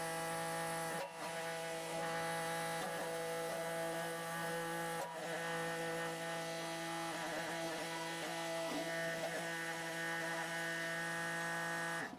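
Kubota B2650 compact tractor's diesel engine running at a steady speed as the tractor creeps forward, heard as a constant, even-pitched hum with two brief dips.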